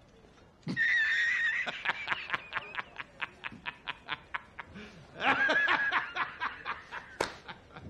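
A man laughing hard. It starts as a high, squealing cackle about a second in and breaks into a rapid string of short breathy gasps, about five a second. A second loud bout of laughter comes near the middle and trails off into more gasps, with a single sharp click near the end.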